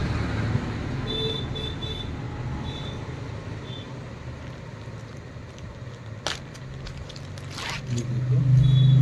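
Steady low hum of road traffic, with a few short high beeps early on. Plastic garment packaging crinkles sharply twice, about six and about seven and a half seconds in. The low hum grows louder near the end.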